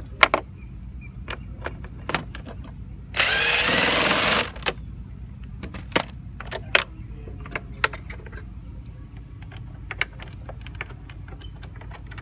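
Power drill driving an 8 mm screw on the radiator fan shroud in one burst of just over a second, amid scattered clicks and clinks of tools and metal parts being handled.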